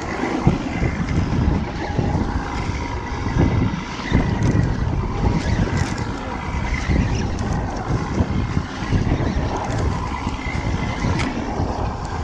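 Wind buffeting the microphone in gusts, over the steady hum of an idling outboard motor, with a few light clicks.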